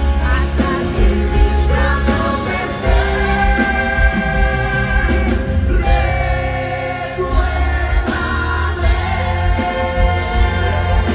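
Live band music with a male lead singer: a sung ballad over guitar, keyboards and a strong bass.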